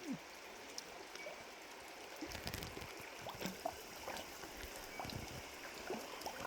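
A creek trickling faintly, with small splashes and low sloshing thumps from about two seconds in, as of wading through the water.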